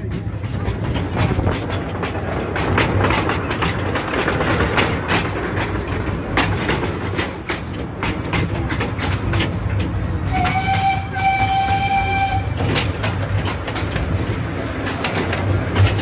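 Steam train running, its wheels clattering over the rail joints in a stream of quick clicks over a steady rumble. About ten seconds in, its whistle sounds once, a steady note held for about two seconds.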